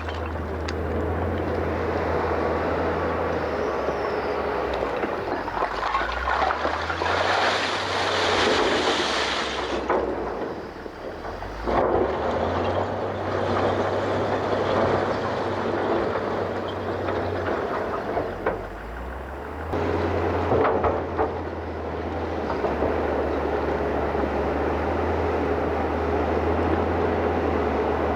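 Diesel engine of a heavy construction machine running under load, its note shifting up and down several times, with a few clanks and knocks around the middle and later.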